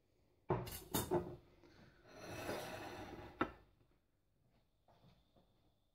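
Kitchenware being handled on a worktop as the counter is cleared. Three sharp knocks come in the first second and a half, then a plate slides across the counter for over a second and ends in a sharp clack, then a few faint light taps follow.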